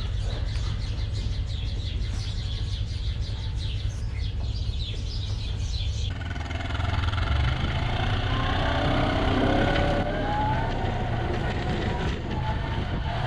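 Kubota engine running with a steady low drone. Over it, high scratchy streaks fill the first half, then higher sounds glide up and down in pitch through the second half.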